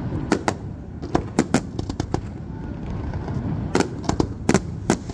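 Fireworks display: aerial shells bursting in a run of about nine sharp bangs at irregular intervals, the loudest cluster about four seconds in, over a steady low rumble.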